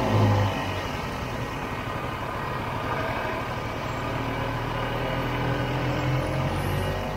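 1967 Ski-Doo Olympique's single-cylinder two-stroke engine running under way. It drops in level about half a second in as the throttle eases, then runs steadily.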